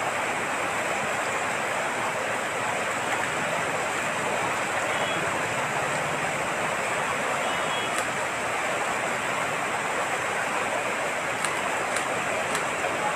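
Floodwater rushing fast across a flooded street and churning over a standing wave: a steady, unbroken rushing noise.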